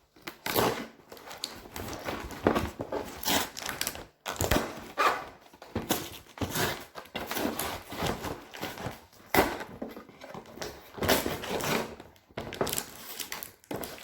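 A ring light's box and packaging being opened by hand: a dense, irregular run of rustling and crinkling of cardboard and plastic, with occasional knocks.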